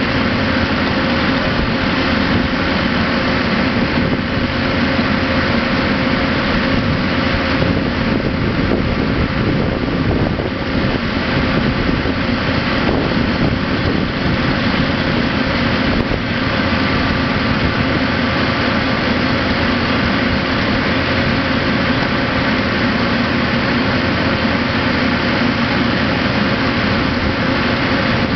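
Steady, unbroken drone of the engine-driven power unit of a Holland mobile flash-butt rail welder, running at a constant pitch.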